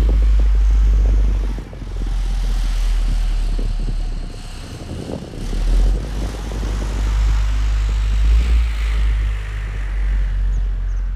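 Very deep bass from two 24-inch Sundown Audio ZV.5 subwoofers in one large ported box, heard from outside the shop building: a loud, steady low drone that dips about two seconds in and again around five seconds in.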